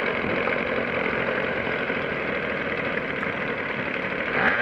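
Petrol weed-wacker (whipper snipper) engine in an RC boat, idling steadily.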